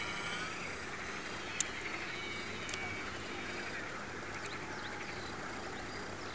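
Motor of a radio-controlled Cessna 400 model floatplane whining faintly as it flies overhead, with bird calls and one sharp click about one and a half seconds in.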